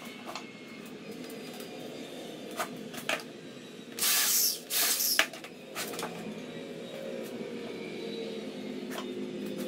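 Corded electric drill running in two short bursts, about half a second each, some four seconds in as it bores into a wooden board. Light knocks of wooden framing pieces being handled come before and after.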